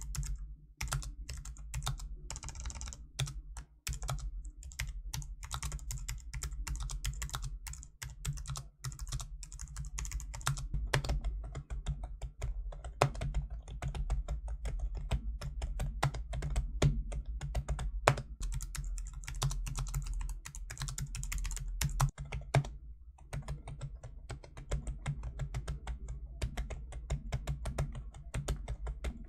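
Continuous typing on a TypeMatrix 2030 keyboard's scissor switches: a dense stream of quick key clicks with a short lull about two-thirds of the way through, over a steady low hum.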